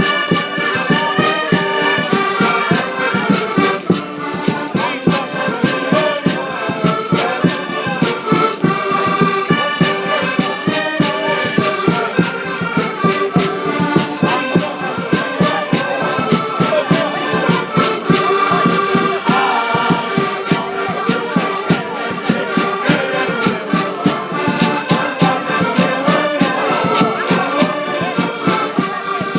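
Live band music with a steady, quick beat and a continuous melody.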